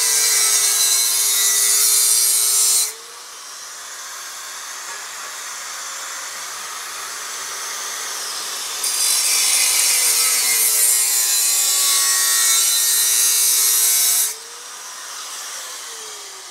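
Handheld electric grinder worked against metal in two passes, each a loud hiss over a motor whine that sags in pitch under load. Between the passes it runs free and quieter, and near the end it is switched off and winds down.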